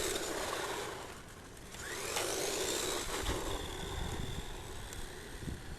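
Electric motor and drivetrain of a Holyton 1:10 scale 4WD RC monster truck running flat out: its whine dips, then rises sharply in pitch about two seconds in as the truck accelerates, and holds high and steady after that.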